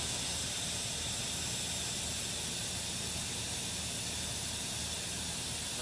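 Diesel engine of heavy lifting equipment running steadily, with a constant high hiss over its low rumble.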